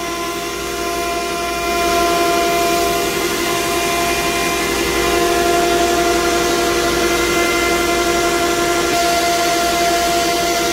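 Plastic pelletizing line running: a steady industrial machine drone with several constant whining tones over a hiss, from the line's motors and blower.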